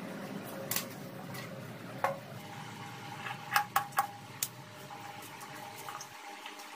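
Scissors cutting through a folded paper wedding card: a quick run of sharp snips and clicks about three and a half to four and a half seconds in, after a couple of scattered single clicks earlier.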